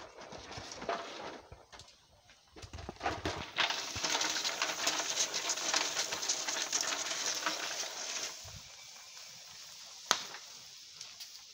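Cashew seeds roasting in a metal pot over a wood fire, the shells crackling and hissing as their oil cooks off. The crackling swells loud about three and a half seconds in and dies down to a low hiss after about five seconds, with one sharp crack near the end.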